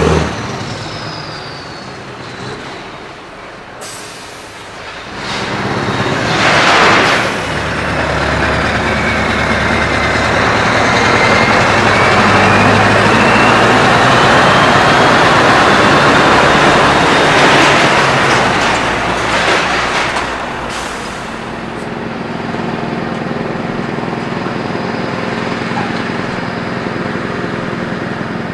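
Scania R560 V8 diesel truck with an open, straight-through exhaust, running and pulling as it manoeuvres, with a whistle over the engine that dips and rises in pitch and short air-brake hisses. About 21 seconds in it settles to a steady idle.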